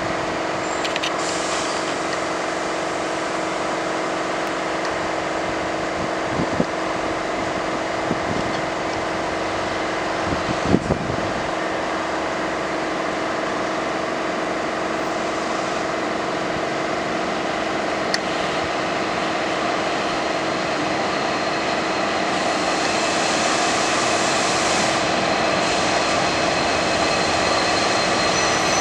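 KiwiRail DFB-class diesel locomotive approaching slowly with its train, its engine giving a steady hum that grows louder over the last several seconds as it draws near.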